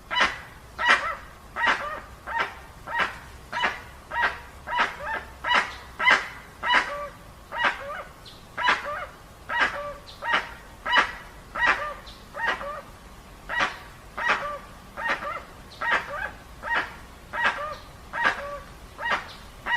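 Dusky-legged guan (jacuguaçu) calling: a steady series of loud, harsh, evenly spaced calls, a little over one per second.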